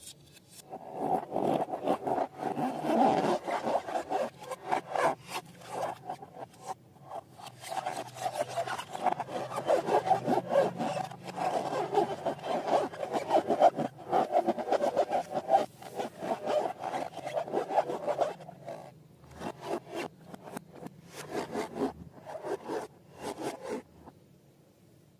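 Slime being squished and kneaded by hand: a dense run of rapid sticky clicks and rubbing. It thins to separate clicks in the last few seconds.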